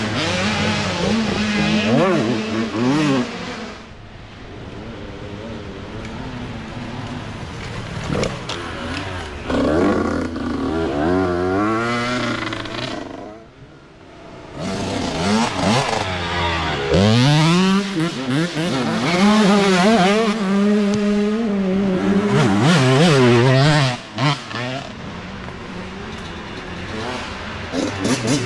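Youth dirt bike engines revving as riders come down a downhill race section one after another, the pitch climbing and dropping with each throttle change and gear shift. Each bike grows loud as it passes close, with a short drop in sound about halfway through.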